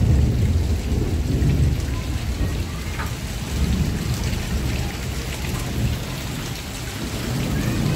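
Heavy rain pouring down and splashing on a concrete yard, with a steady low rumble running underneath.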